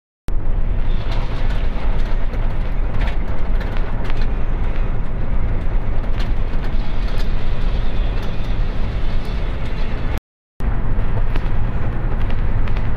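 Steady road noise of a vehicle travelling at highway speed, heard from inside: a loud low rumble of tyres, engine and wind. It cuts out for a moment about ten seconds in.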